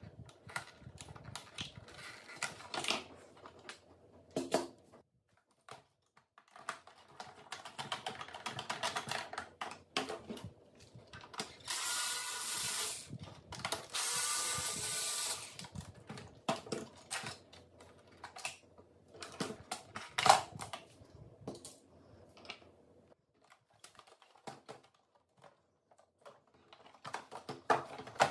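Small Bosch cordless screwdriver whirring in two short runs about halfway through, turning screws in a robot vacuum's plastic chassis. Around it are clicks and rattles of screws and plastic parts being handled, with one sharp knock a little after the second run.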